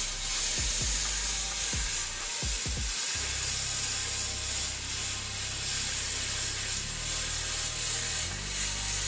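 Handheld plasma cutter cutting through sheet steel: a steady hissing buzz of the arc and its air stream with no break.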